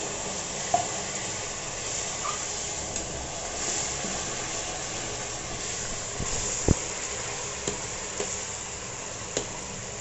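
Curry gravy sizzling in a kadhai, with water just added, while a metal spatula stirs it. A few sharp clicks of the spatula striking the pan, the loudest about two-thirds of the way through.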